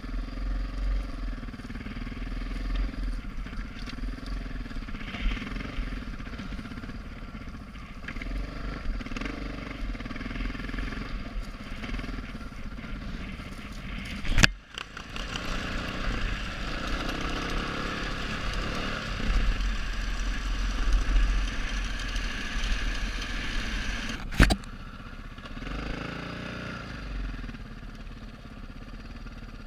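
Dirt bike engine running while riding off-road, with heavy low wind rumble on the microphone. Two sharp clicks come about 14 and 24 seconds in, and the engine is quieter after the second one.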